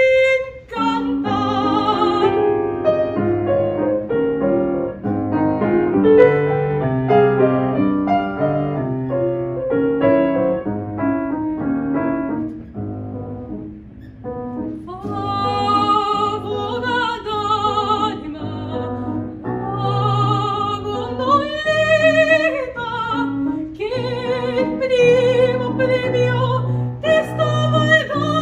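Classical female voice singing with operatic vibrato, accompanied on a grand piano. A held sung note ends right at the start, the piano plays alone for about fourteen seconds, and the voice comes back in with vibrato over the piano for the rest.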